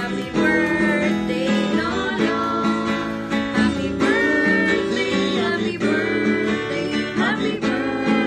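Acoustic guitar strummed steadily while a man and a woman sing together.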